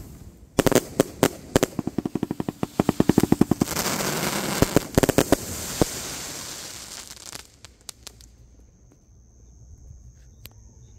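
A 150-shot consumer firework cake firing its last shots: a fast volley of launches and bursts, then a dense crackle of crackling stars that dies away about seven seconds in, leaving it quiet.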